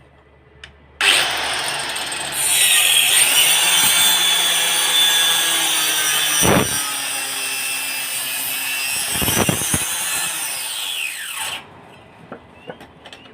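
Power saw cutting through wood: the motor starts suddenly about a second in, the cut gets louder at about two seconds and runs steadily, then the blade whine falls away as the saw winds down near the end.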